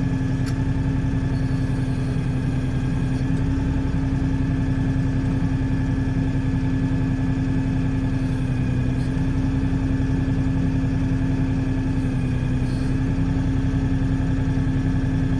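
Diesel engine of an LS XR4140 compact tractor running at a steady speed, a constant hum with no change in pitch, with a few faint clicks.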